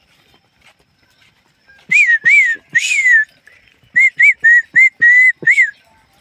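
A person whistling a run of short notes, three and then six in quicker succession, each note rising and falling around the same pitch.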